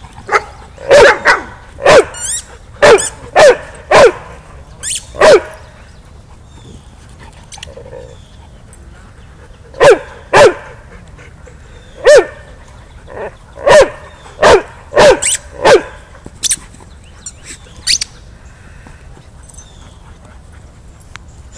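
Dog barking in short, loud barks: a quick run of about eight in the first five seconds, then a pause, then another run between about ten and sixteen seconds in. A few thin, high sounds follow near the end.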